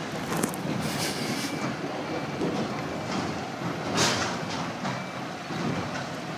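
Scania road train reversing slowly: the truck's diesel engine running steadily while the steel cattle-crate trailers rattle. A few brief louder bursts come through, the strongest about four seconds in.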